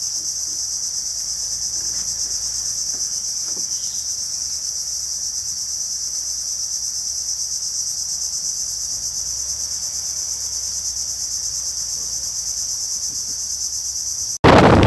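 Tropical forest insect chorus: a steady, dense, high-pitched buzzing drone. Near the end it cuts off abruptly and a loud rush of wind on the microphone takes over.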